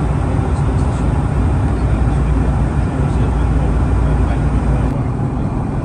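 Steady low roar of an airliner in flight, engine and airflow noise heard from inside the cabin, with a brief faint tick about five seconds in.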